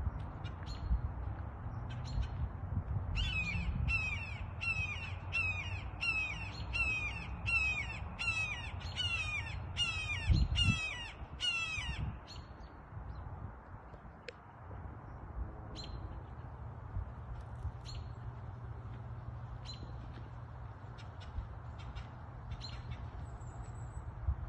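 A bird giving a rapid series of about a dozen harsh, falling calls, roughly one every 0.7 s, over about nine seconds, with scattered short chirps from other small birds and a steady low rumble. A brief low thump comes near the middle.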